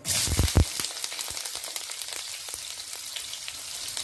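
Sliced red onions go into hot oil in an aluminium pan and start sizzling at once, with a couple of low thumps as they land. They then fry with a steady, crackling sizzle.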